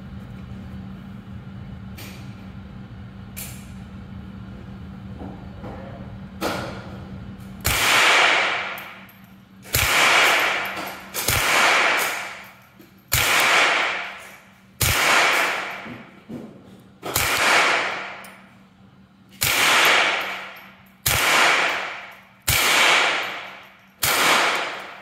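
HK416 .22 Long Rifle rimfire rifle firing about ten single shots, one every one and a half to two and a half seconds, starting about eight seconds in. Each crack is followed by a long echo in the indoor range. Before the first shot there is a steady low hum with a few faint clicks.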